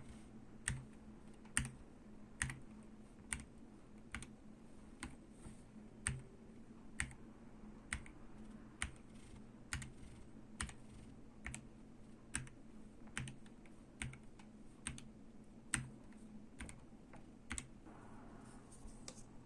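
Ardor Gaming Patron mechanical keyboard with Gateron Yellow Pro linear switches, keys struck one at a time in a slow, even rhythm of about one sharp click a second.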